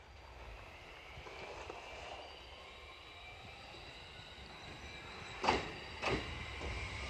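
An approaching train: a faint rising hiss of the rails with thin high singing tones. Near the end come two sharp clacks about half a second apart as its wheels cross a rail joint.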